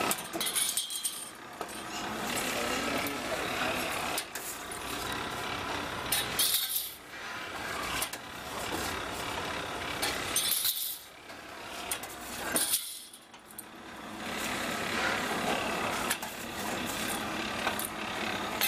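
Automatic packing-clip making machine running, a steady mechanical clatter broken by sharp metallic clinks a few times, several seconds apart.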